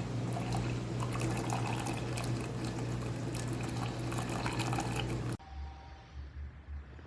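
Chefman single-serve drip coffee maker brewing, water streaming into the cup over a steady low hum. The flow and hum cut off suddenly about five seconds in, leaving a few faint knocks.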